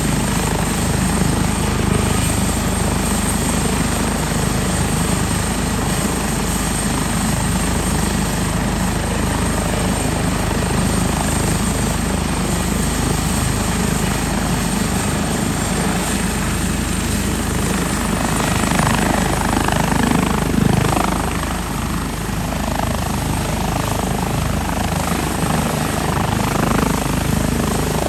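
Airbus H145 twin-turbine helicopter running with its rotor turning: a loud, steady turbine and rotor noise that grows a little uneven in the second half.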